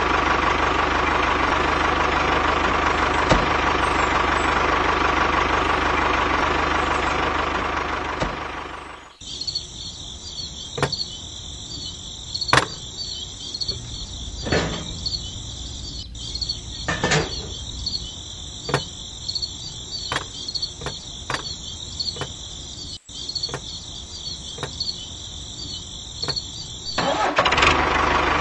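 A tractor engine runs steadily for about nine seconds, then cuts off suddenly. A quieter stretch follows, with a steady high-pitched hiss and scattered light clicks and knocks as small model parts are handled and set down. The engine sound comes back near the end.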